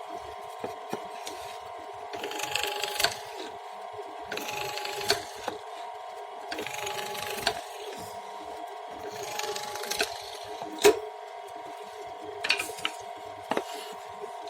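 Hand woodworking: a tool worked against wood in irregular strokes lasting about a second each, with a few sharp knocks, the loudest about eleven seconds in, over a steady machine-like hum.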